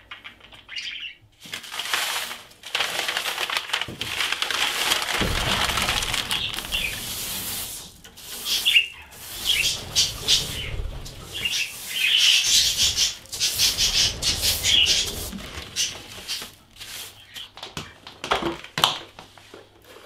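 Budgies flapping their wings: a long run of flapping in the first half, then shorter irregular bursts mixed with brief chirps.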